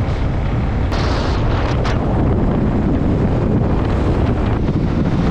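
Heavy wind buffeting the microphone on a moving motorcycle, a steady low rumble mixed with engine and road noise.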